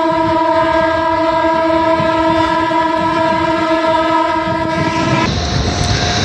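Train horn held in one long, steady blast that cuts off suddenly about five seconds in. It leaves the rush of wind and the rumble of the moving passenger coach.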